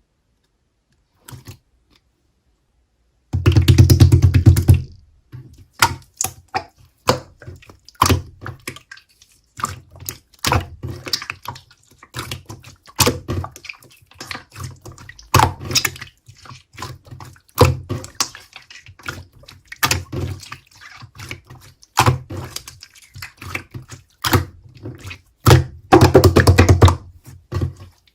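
Slime being squished and pressed by hand, giving a dense, irregular run of sticky clicks and small pops. There are louder, fuller stretches a few seconds in and again near the end.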